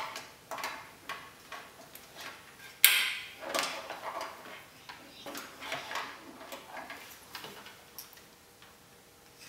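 A small plastic wiring connector being unclipped and pulled apart by hand, with irregular light clicks and taps from handling it and the multimeter's probe leads. One sharper click comes about three seconds in.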